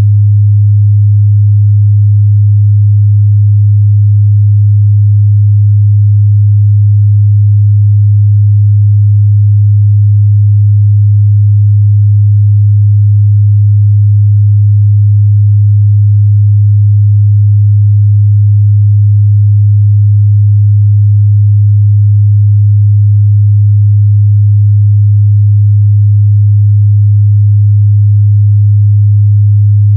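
A steady, loud 103 Hz sine-wave test tone, a low hum held at one pitch without change.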